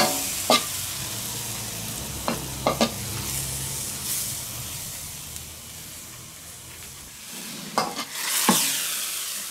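Chopped tomatoes sizzling and frying in a hot wok while a metal spoon stirs them, scraping the pan with a few sharp clinks of metal on metal near the start and again near the end.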